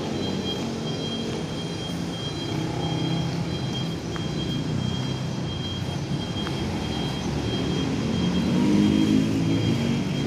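Steady hum of an engine running, with a thin, steady high tone above it.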